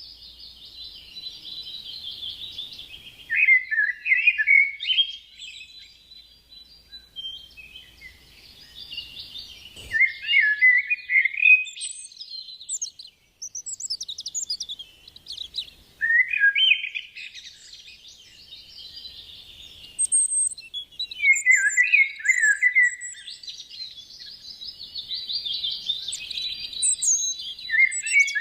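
Songbird singing in repeated phrases a few seconds apart. Each phrase is a rapid high trill that drops into lower, quicker notes.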